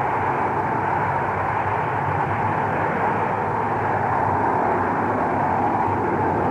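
Radio-drama sound effect of a rocket lifting off: a steady, even rumble of rocket engines with no break, heard through the narrow, dull sound of an old broadcast recording.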